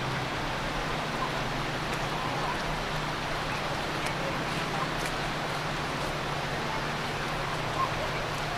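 Steady rushing noise of muddy Susquehanna River floodwater flowing across a flooded park, with a low steady hum underneath.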